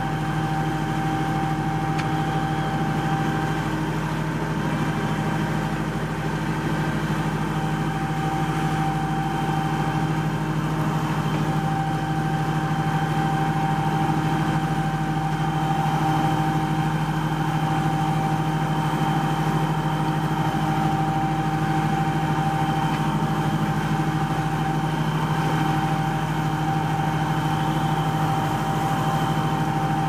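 Steady engine drone of a futuristic motor ship sound effect: a constant low hum with a steady high whine over it, the whine fading for several seconds early on and then coming back.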